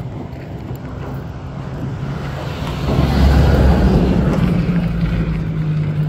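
Pickup truck engine running close by, a steady low hum that grows louder about three seconds in.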